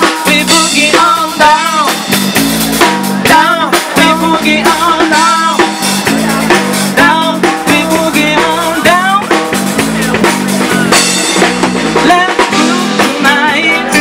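Live blues-funk band playing through PA speakers: a woman sings into a microphone over electric bass, drum kit and keyboard, with a steady beat.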